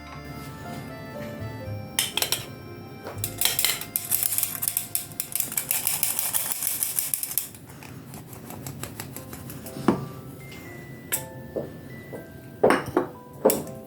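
Kitchen utensils clinking and scraping against a bowl, with a few seconds of rapid scraping in the middle, over background music.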